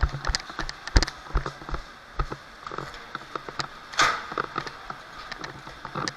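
Airsoft gunfire: scattered sharp clicks and pops of BB guns being fired, with one louder, longer pop about four seconds in.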